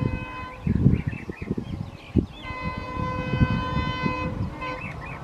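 Air horn of an approaching ALCo WDM3A diesel locomotive. It sounds twice: one blast ends about half a second in, and a longer one runs from about halfway to near the end. Under it is the uneven low rumble of the engine and wheels, and birds chirp briefly between the blasts.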